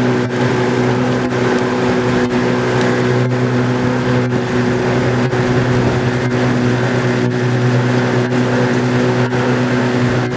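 Small outboard motor running steadily at speed with an even drone, over the rush of water along a boat's hull.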